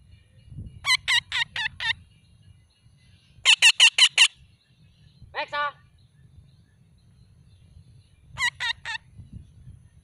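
Alexandrine parakeet giving loud calls in quick runs: five about a second in, six at about three and a half seconds, and three near the end, with one lower, rattling call in between.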